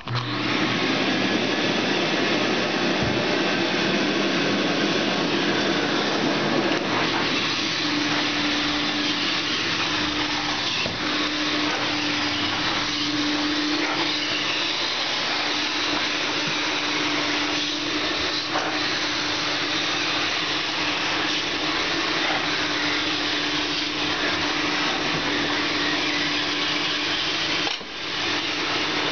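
Carpet-cleaning extractor's vacuum running as its floor wand works a rug: a loud, steady rushing suction noise with a constant hum. It starts abruptly and drops out briefly about a second before the end.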